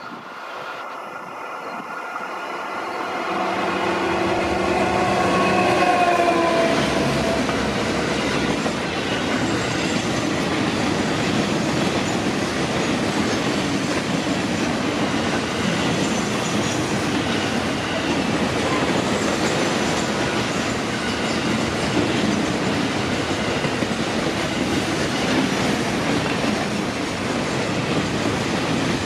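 Diesel freight locomotive approaching and passing, its pitched engine note growing louder and then dropping in pitch as it goes by, followed by a long train of loaded container wagons rolling past with a steady sound of wheels on the rails.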